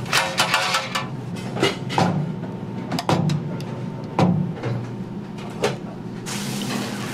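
Stainless-steel stockpot lid being handled and lifted off with a clank and a short metallic ring, then a metal ladle knocking against the pot now and then as beaten egg is stirred and scooped. Near the end a steady sizzle starts as egg goes onto the hot griddle.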